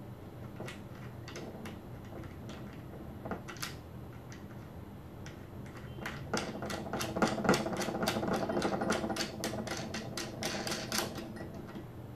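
Metal clicking as a nut is run down and tightened on a bolt of the sector antenna's steel U-bracket. It starts as scattered clicks, then becomes a fast, continuous run of clicks from about six seconds in until near the end.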